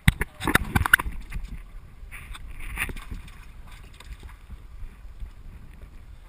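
Small rowboat being rowed: knocks from the oars and water splashing, loudest in the first second, with a second, weaker splash near three seconds, then quieter water and hull noise.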